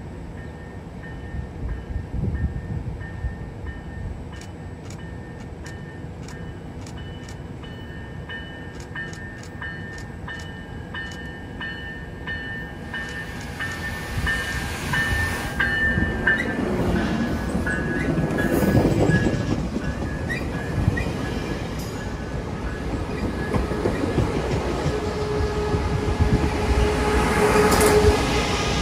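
San Diego Coaster push-pull commuter train passing cab car first, with its diesel-electric locomotive pushing at the rear. The rumble of the train builds through the second half and is loudest as the locomotive goes by near the end, with a steady hum in the last few seconds. In the first half there is a steady high ringing with regular ticks about twice a second.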